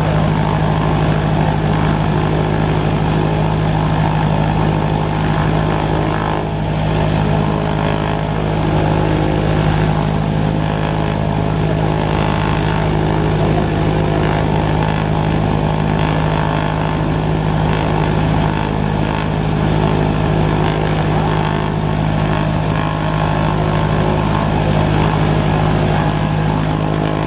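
Cessna 172M Skyhawk's four-cylinder Lycoming engine and propeller running steadily at low taxi power.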